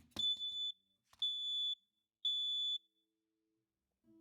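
Smoke detector alarm sounding in the temporal-three pattern: three high-pitched beeps about a second apart, then a pause. The alarm has been set off by sawdust on its sensor.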